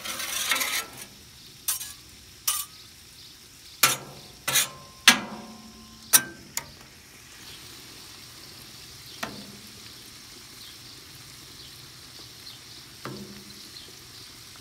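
A metal spatula scrapes and clanks on the steel plate of a hot Blackstone flat-top griddle, with a series of sharp clanks over the first six or seven seconds. After that, meat and bread sizzle steadily on the griddle, with a couple of light taps.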